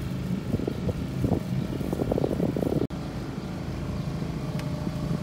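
The sailboat's auxiliary engine running steadily as the boat motors along, a low even hum. There is some uneven rumbling in the first three seconds, and the sound drops out for an instant about three seconds in.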